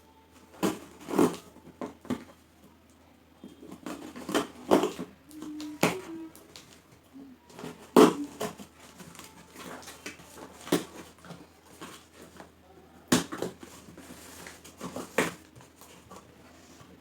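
A cardboard parcel being opened by hand: irregular tearing, crackling and knocking of the box and its packaging, with quieter rustling in between.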